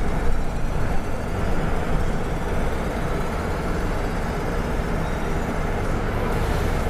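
City bus heard from inside near the front: a steady low rumble of the engine and road noise while the bus drives along, with a faint whine that slowly shifts in pitch.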